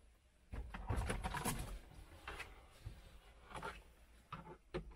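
Hard plastic RC truck body being lifted and set down onto an RC chassis: a burst of rubbing and clatter lasting about a second, followed by a few lighter knocks as it is settled in place.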